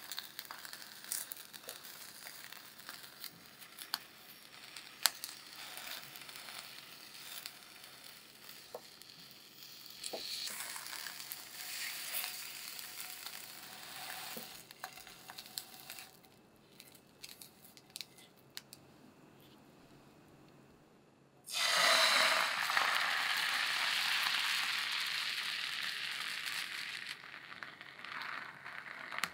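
Food sizzling gently in a nonstick frying pan, with light clicks of chopsticks and a spatula against the pan as a sausage is rolled up in an egg omelette. After a quieter spell, a sudden loud sizzle starts about two-thirds of the way in, as from beaten egg poured into the hot pan, and slowly dies down.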